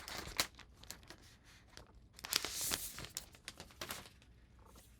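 Packaging wrap around a new Apple Magic Keyboard rustling and crinkling as it is pulled off and handled, in two bursts, the louder one about halfway through, with a few light clicks and taps between.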